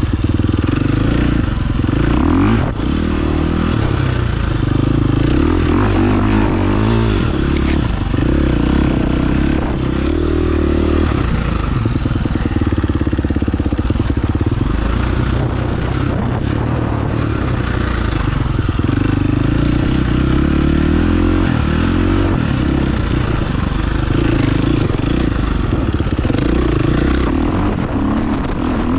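Dirt bike engine running while riding a trail, its pitch rising and falling again and again as the throttle is opened and closed.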